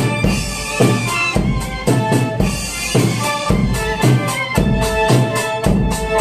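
Background music with a steady drum beat: kick drum and snare under sustained melodic instruments.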